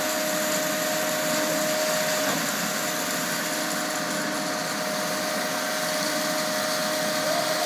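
Concrete pump truck running at work: a steady, dense mechanical noise with a constant whine.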